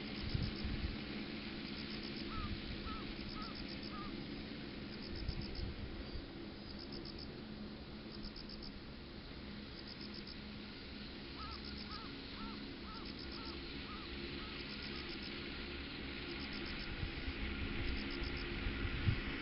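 Multirotor agricultural spraying drone humming steadily in flight, its rotors giving a steady low drone. Over it an insect calls in short pulsing trills about every second and a half, and a few quick chirps come twice.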